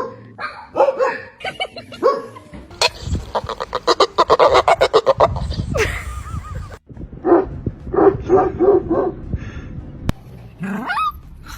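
A dog vocalizing in a string of yips, whines and short barks, with a fast run of short yelps in the middle, a series of about six quick yips later, and a rising whine near the end.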